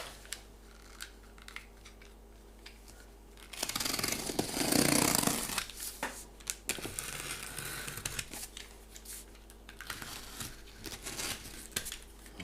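A cardboard box's packaging being torn open by hand, with a loud tearing stretch of about two seconds a few seconds in, then scattered rustles and light knocks as the contents are handled.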